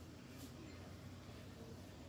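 Quiet shop room tone: a faint steady low hum, with a faint click about half a second in.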